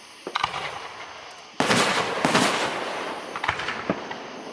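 Aerial fireworks shells bursting: a few light crackles, then two heavy booms about a second and a half and two seconds in, echoing, followed by a couple of sharp cracks near the end.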